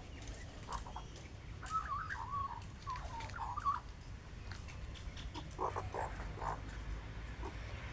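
Birds calling close by: a run of soft, wavering, warbling notes, then a few short clucking calls.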